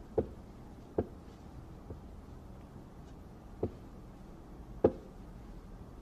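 Billiard balls knocking as they are set down and rolled on a pool table: four or five separate short clicks at uneven intervals.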